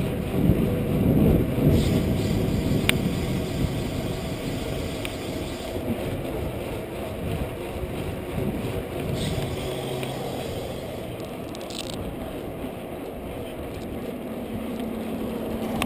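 Wind buffeting the microphone of a chest-mounted action camera during a mountain bike ride, mixed with the bike's rolling noise on a concrete path. The rumble eases off gradually toward the end, and there is a single sharp click about three seconds in.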